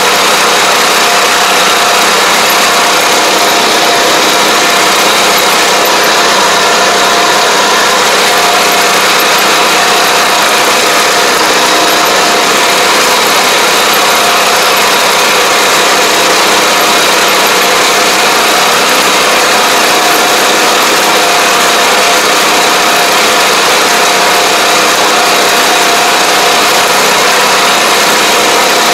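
Engine of a ride-on high-clearance crop sprayer running steadily as it drives through the field, heard up close from the driver's seat, with a constant whine over the engine noise.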